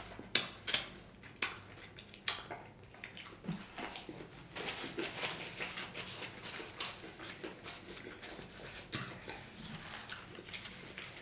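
Close-miked chewing of crispy fried chicken wings, with several sharp crunches in the first few seconds. Then a denser crackling rustle of a paper napkin being handled and wiped across the mouth.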